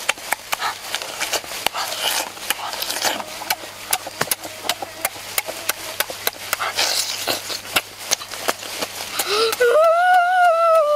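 Close-up eating sounds of a boy chewing food with his mouth open: many wet smacks and lip clicks. Near the end a high, drawn-out vocal note rises and falls in pitch.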